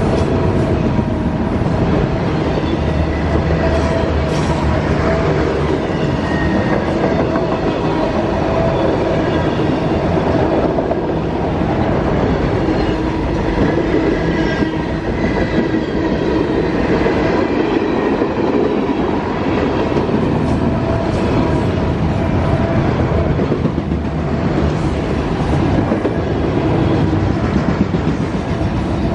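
A CSX freight train's autorack cars and boxcars rolling past close by: a steady rumble of steel wheels on the rails with the clickety-clack of wheels passing over rail joints.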